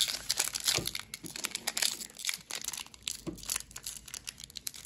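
Foil booster pack wrapper of a Pokémon trading card game pack crinkling and crackling as it is handled, with irregular rapid crackles throughout.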